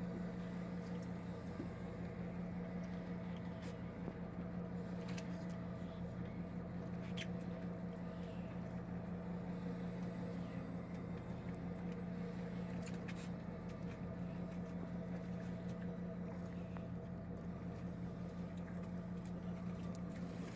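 Charter fishing boat's engine running steadily, a constant low hum, with a few faint ticks.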